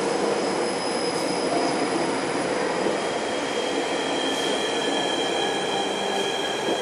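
Queensland Rail electric Tilt Train rolling slowly past the platform as it arrives. Its wheels squeal in several steady high-pitched tones over a steady rolling rumble, and a further squeal tone joins about three seconds in.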